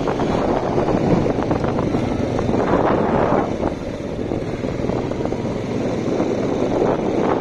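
Quad bike (ATV) engine running while riding along a dirt track, mixed with heavy wind buffeting the microphone.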